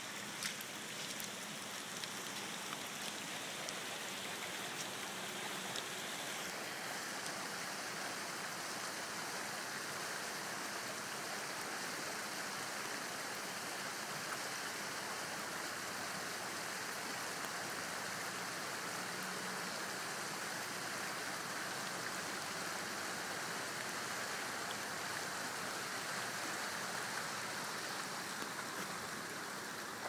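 Steady hiss of rain falling on wet forest foliage and a muddy creek pool, with no distinct engine sound above it.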